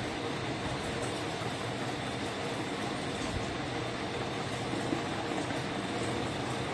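Steady room background noise: an even, unbroken hiss.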